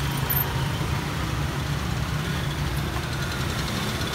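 Busy street traffic, mostly motor scooters with some cars, riding past with a steady engine hum.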